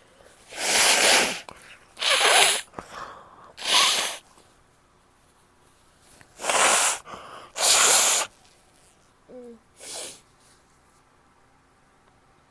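A woman sneezing five times, in a cluster of three and then a cluster of two, each a loud, hissy burst. Near the end come a short voiced sound and one softer burst.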